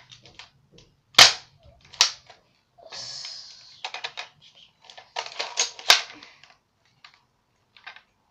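Nerf Spectre Rev-5 toy blaster being cocked and worked: a string of sharp plastic clacks and clicks, the loudest about a second in, with a short rasping hiss around the middle and a cluster of rattling clacks a little later.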